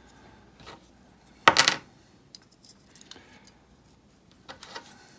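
A small hard-plastic part from a pump's pressure-switch housing clatters onto a tabletop about a second and a half in, the loudest sound, with a brief rattle. Faint clicks of small plastic switch parts being handled follow.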